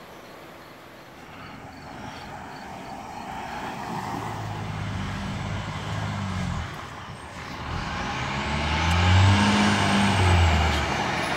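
Fire engine approaching and growing louder, sounding its air horn in two long blasts, the first about four seconds in and the second about eight seconds in.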